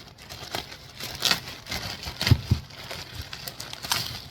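Plastic packaging rustling and crinkling as a package is cut and pulled open, in short irregular rustles. Two dull thumps come close together a little past two seconds in.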